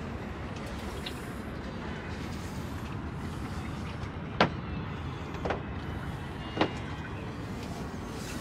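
Steady low rumble with three sharp knocks, about a second apart, the first the loudest.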